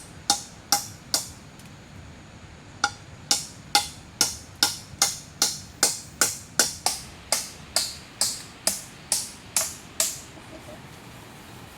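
A hand tool striking wood over and over at a steady pace of a little over two blows a second, each blow sharp with a short ring. After three blows there is a short pause, then a long even run that stops near the end.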